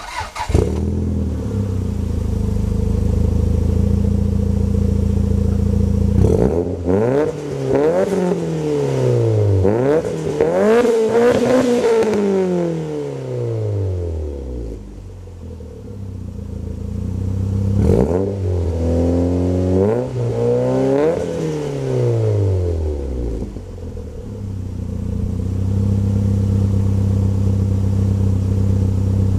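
Toyota Celica GT-Four ST205's turbocharged 3S-GTE four-cylinder engine, breathing through a decatted Blitz Nür-Spec 3-inch exhaust, starts up and settles to idle. It is then revved in repeated quick blips, the revs climbing and falling, in two bursts: one about six seconds in and another about eighteen seconds in. Each time it drops back to a steady idle.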